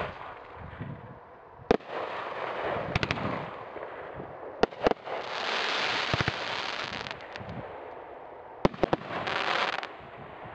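Hop Kee Survivor consumer firework cake firing its shots: sharp shell-burst bangs, some single and some in quick clusters. Two stretches of crackling follow, one from about five to seven seconds and one just before ten seconds, from the crackling stars of the finale.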